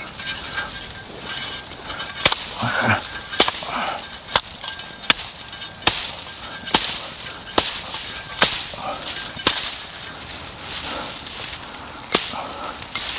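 Hand tools, a spade and a short-handled hoe, chopping into dry reeds and brush while a fishing spot is cleared: sharp strikes about once a second, with a pause a couple of seconds before the end, over the crackle and rustle of dry stalks.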